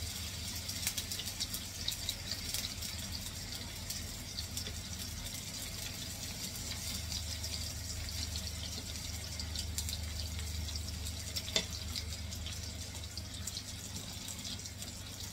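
Chicken strips sizzling and crackling as they fry in oil in a nonstick pan, with one sharper click about eleven and a half seconds in, over a steady low hum.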